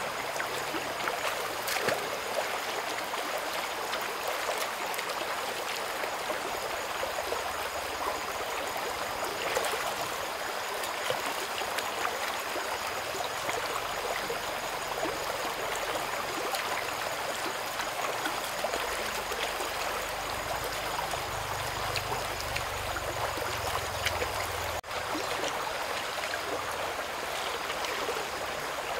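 Shallow rocky stream running steadily over stones, with a few small splashes as hands work in the water.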